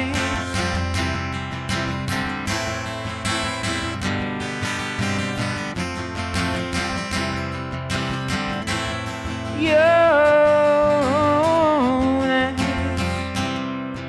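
Acoustic guitar strummed steadily through an instrumental passage of a folk-pop song. About ten seconds in, a wordless sung melody joins for a couple of seconds.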